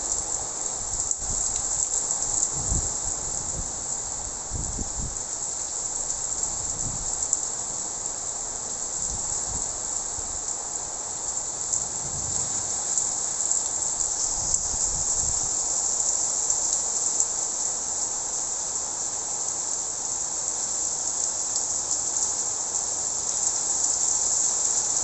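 Heavy rain pouring down steadily, an even high hiss, with a few dull low thumps in the first half.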